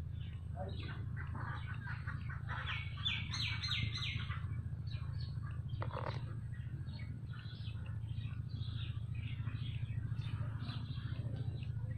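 Small birds chirping in short, scattered high notes, with a brighter run of about five quick notes around three seconds in, over a steady low hum.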